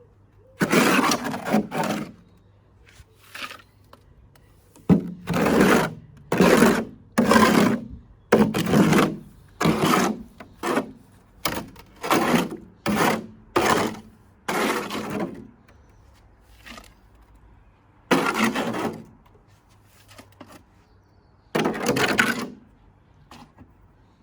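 Wet cement mix being scraped and stirred in a bucket: a run of rough scraping strokes, mostly about one a second, with a couple of longer pauses.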